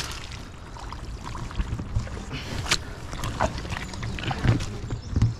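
Boots squelching through deep, sticky mud in a few slow, irregular steps, with dull thuds as each foot is pulled out and set down; the walker is bogging down in the mud.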